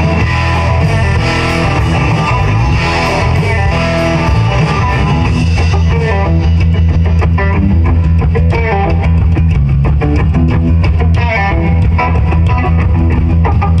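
Live rock band playing an instrumental passage: a Stratocaster-style electric guitar plays over bass and drums, with steady cymbal and drum hits.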